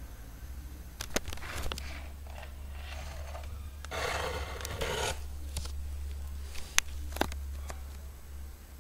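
Handling noise on a webcam microphone as the camera is moved: rubbing and scraping, loudest for about a second in the middle, with a few sharp clicks. A low steady hum runs underneath.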